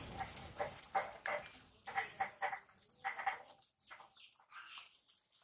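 An animal calling in short, even-pitched calls, about three a second in bursts, fading near the end, with a rustle in the first second.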